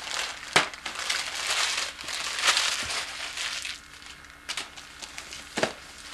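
Gift-wrapping paper being torn and crumpled as a present is unwrapped: bursts of crinkling and rustling, with two sharp snaps, about half a second in and near the end.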